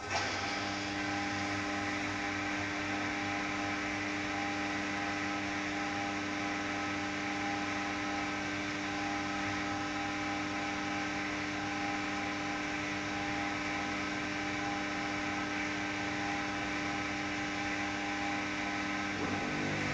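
1512F3 CNC vertical turning lathe running, a steady machine hum and whine of several held tones. It sets in with a short jolt at the start, and its tone shifts slightly near the end.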